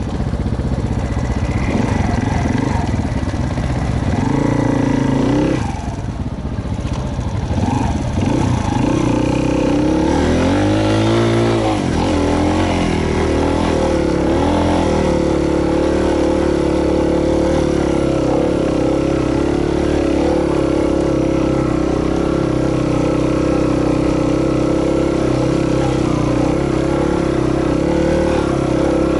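Off-road motorcycle engine running under load as it is ridden along a forest trail. The revs wander at first, dip and climb again about ten seconds in, then hold steady.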